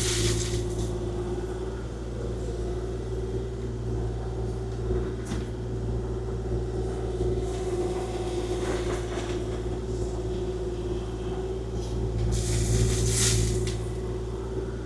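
Kubota KX040-4 mini excavator's diesel engine running steadily, with a constant whine over its low hum. Several short hissing rushes break in, the longest near the end.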